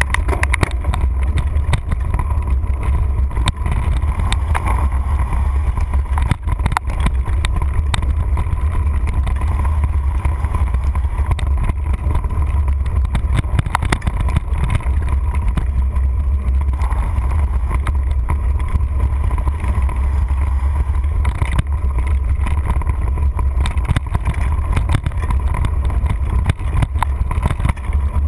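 Mountain bike riding fast over a dirt singletrack, heard as a steady low rumble of wind buffeting the microphone, with frequent clicks and knocks as the bike jolts over the trail.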